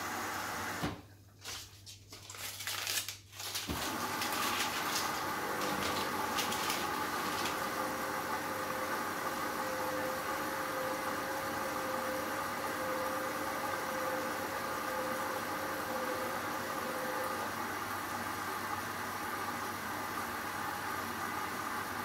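Hoover Dynamic Next washing machine running a Rapid 14 cycle: a steady hiss over a low hum. The sound drops away about a second in and comes back just before four seconds, with a few clicks over the next few seconds.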